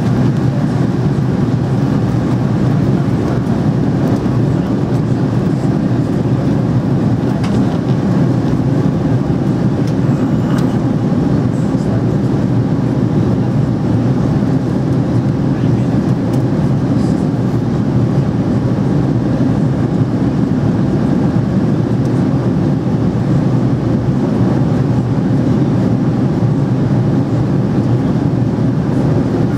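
Steady engine and airflow drone inside the cabin of an Airbus A300B4-600 in flight, deep and unchanging.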